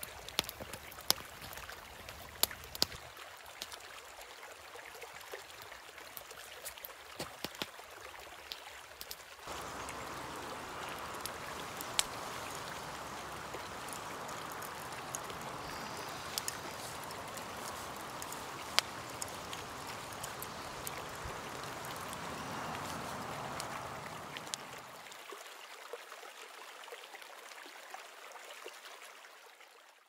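Shallow rocky stream flowing steadily, louder from about a third of the way in and fading away near the end, with scattered sharp clicks over it.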